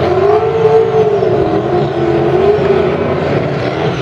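GM LS-based V8 drag car doing a burnout: the engine is held at high revs, loud, its pitch wavering up and down as the throttle is worked while the rear tyres spin.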